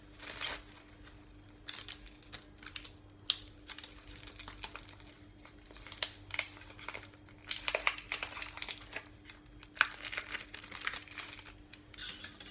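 Wrapper on a block of cheese crinkling as it is handled and peeled open, in irregular bursts, ready for grating.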